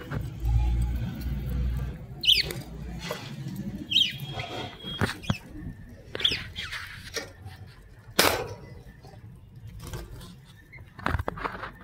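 Young budgerigars giving short chirps every second or two, mixed with a few sharp clicks and a brief flutter of wings about eight seconds in.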